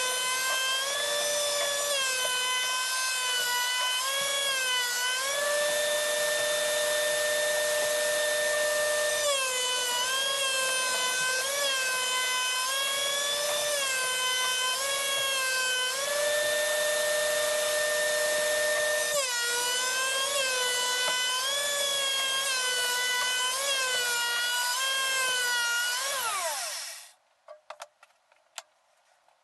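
DeWalt benchtop thickness planer running with a high whine, its pitch sagging each time a mulberry board feeds through the cutterhead and recovering between passes. Near the end the pitch drops and the machine cuts out abruptly as the power bar feeding it blows, leaving only a few faint clicks.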